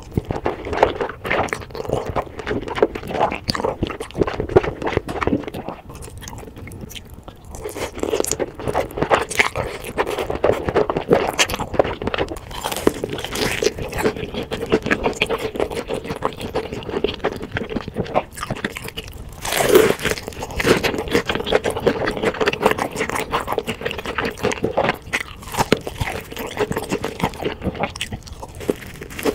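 Close-miked eating of black bean sauce noodles and sauce-glazed fried chicken: biting, crunching and chewing.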